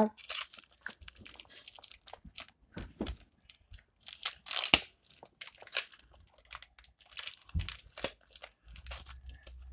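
Foil wrapper of a Pokémon Trick or Trade booster pack being torn open and crinkled by hand: irregular crackling and tearing, loudest about halfway through.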